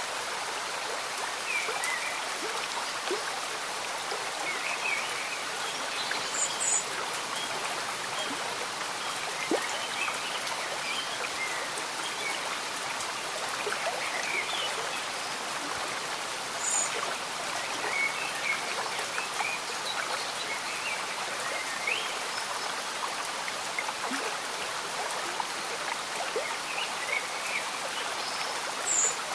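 A slow-moving stream bubbling steadily under gentle rain, with scattered short high chirps throughout.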